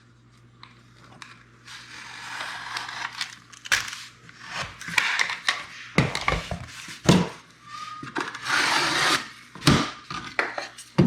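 Scraping and rubbing on a sheet of drywall as it is measured with a tape measure and marked with a sheet rock knife, with several sharp clacks of the tools being handled.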